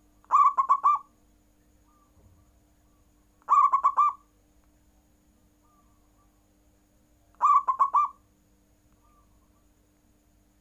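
Zebra dove (perkutut) cooing: three songs about three and a half seconds apart, each a quick run of rolling coo notes lasting under a second.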